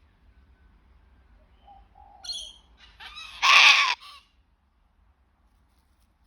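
Sulphur-crested cockatoo making a few soft, short calls, then one loud, harsh screech lasting under a second, about three and a half seconds in.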